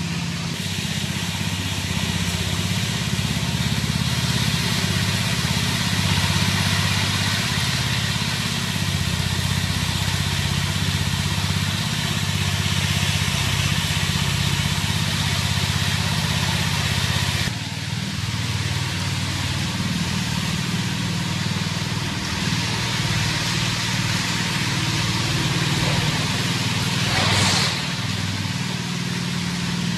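Petrol-engined walk-behind power float running steadily, its float pan going over the fresh concrete slab to knock down ridges and bumps before polishing.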